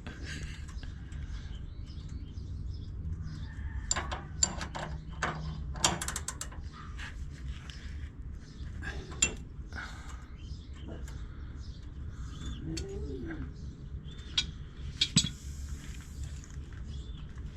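Metal hand tools clicking and clinking during wrench work on a car's front suspension, with a quick cluster of sharp clicks about four to six seconds in and a few single clicks later, over a steady low hum.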